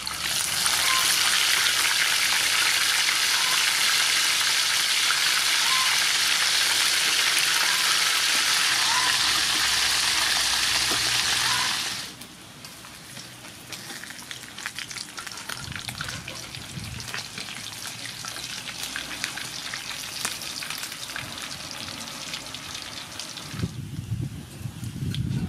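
Fish frying in hot soybean oil in a wok, a loud, steady sizzle. About twelve seconds in it drops suddenly to a quieter crackle, with a few low knocks near the end.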